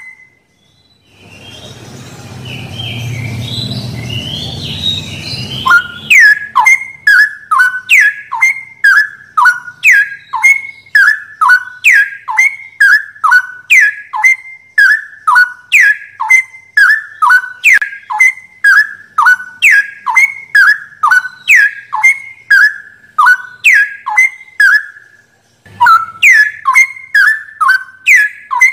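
Straw-headed bulbul (cucak rowo) recording: a long, evenly repeated run of short loud whistled notes, each falling in pitch, about two to three a second, with a brief break near the end. Before the notes begin, a rushing noise swells up about a second in and stops about six seconds in.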